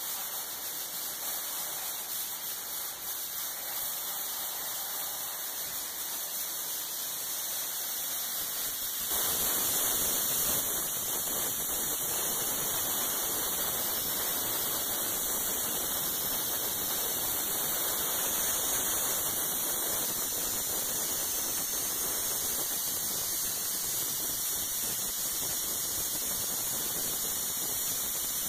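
Plastic media blasting: a blast nozzle hisses steadily as compressed air drives plastic grit onto a 1954 Corvette's fiberglass body, stripping the paint. The hiss grows louder and fuller about nine seconds in.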